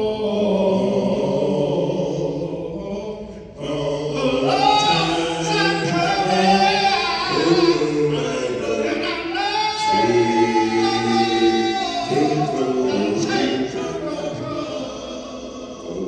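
Male vocal quintet singing a cappella in harmony through microphones, several voices holding chords together. One phrase fades out about three and a half seconds in and the next begins at once.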